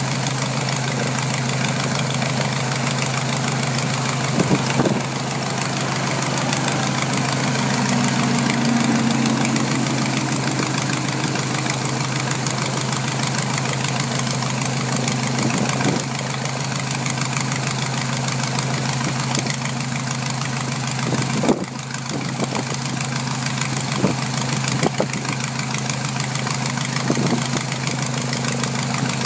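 SE5a biplane's Wolseley Viper (licence-built Hispano-Suiza) V8 engine idling steadily on the ground, with a few brief louder spikes.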